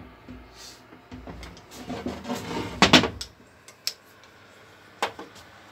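Metal engine parts being handled, a connecting rod and its bearing cap on the crankshaft during a fit check: a low rubbing and rumbling for the first three seconds, then a few sharp metallic knocks, the loudest about three seconds in and another about five seconds in.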